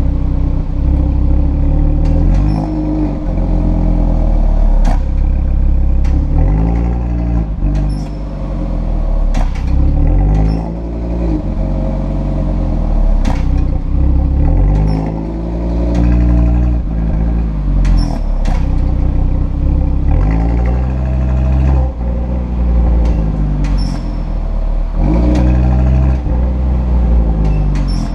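Audi RS3's turbocharged five-cylinder engine revving up and down again and again through its RS sport exhaust. Short high-pitched squeaks come from the exhaust flaps, which are squeaking.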